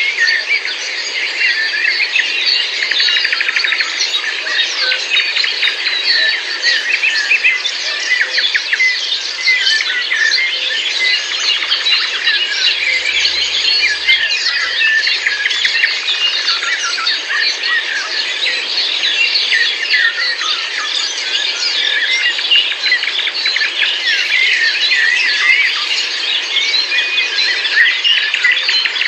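Dense chorus of many small birds chirping and twittering at once, a thick unbroken mass of quick high calls.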